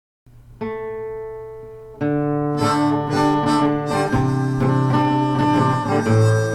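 Intro music on acoustic guitar: a single chord rings out and fades, then a fuller guitar tune starts about two seconds in.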